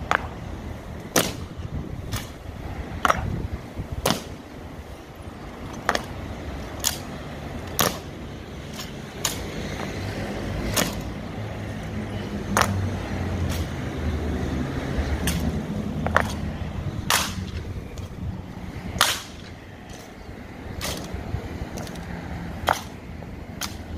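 A string of sharp clacks, roughly one a second and some ringing briefly: the honor guard's boots and rifles striking the ground in the slow, stamping march and rifle drill of a changing of the guard.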